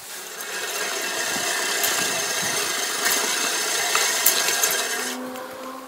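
Troy-Bilt 18-inch Revolution Quiet Cut push reel mower rolling over grass, its spinning reel blades whirring and ticking as they cut. The whir stops about five seconds in as the mower comes to a halt.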